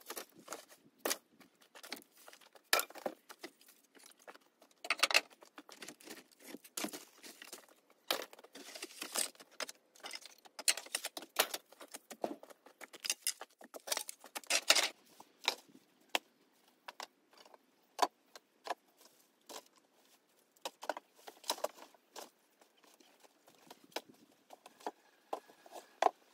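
Old wooden boards and scrap clattering and knocking as they are pulled loose and tossed onto a pile: irregular sharp knocks and rattles.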